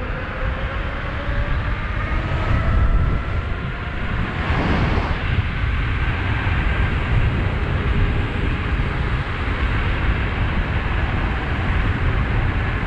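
Wind and road rumble while riding a 72-volt, 5000-watt DIY electric bike, with the motor's faint whine rising in pitch over the first few seconds as it speeds up, and rising again briefly a few seconds later.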